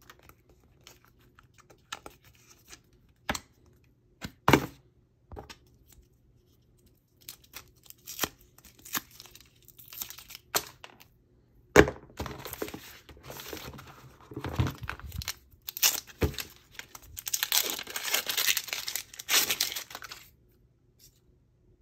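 Paper and plastic packaging of a MacBook Pro box being handled: scattered sharp taps and clicks at first, then the paper wrap being torn off a coiled charging cable and the wrapping around the power adapter crinkling, in long stretches of rustling that are loudest near the end.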